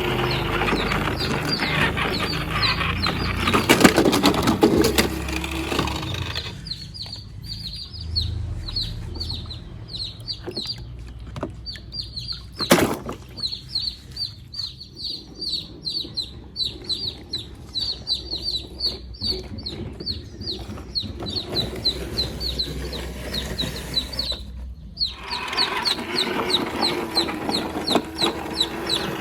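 Birds calling: many short, high, falling chirps, several a second, over a steady low hum. A louder noisy rumble fills the first six seconds and comes back near the end, and there is a single sharp click about 13 s in.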